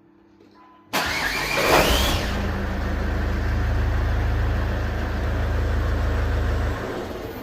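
Ford car engine being started: the starter motor gives a harsh whine that rises in pitch about a second in as the engine catches. This is the bad starter noise the car has. The engine then runs steadily, and its low note cuts off near the end.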